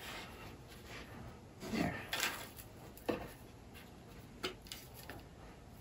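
Light rustling and a few small knocks from handling a wooden wall hanger with a fabric pocket stuffed with moss, the clearest about two and three seconds in.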